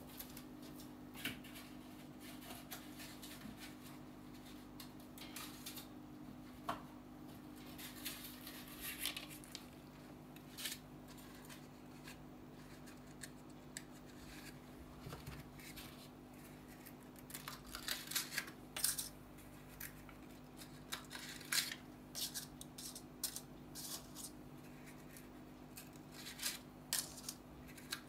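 A metal spoon scraping and clinking in a mixing bowl as cupcake batter is stirred, together with light clatter of paper cupcake liners being set into a metal muffin tin. The clicks grow busier in the second half, over a low steady hum.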